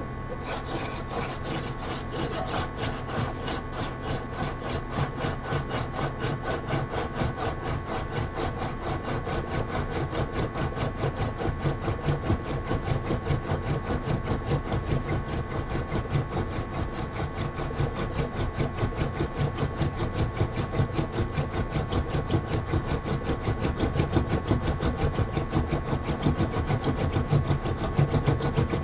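Hand-drill fire-making: a solid maple spindle spun back and forth between the palms, grinding into a maple hearth board. It makes a steady, rhythmic rasping of wood on wood, a few strokes a second, and grows louder toward the end as the friction heats the board toward an ember.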